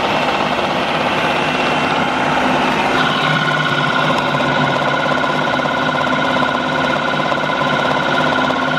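Ninja Kitchen System 1500-watt blender motor running at speed, its tone shifting about three seconds in.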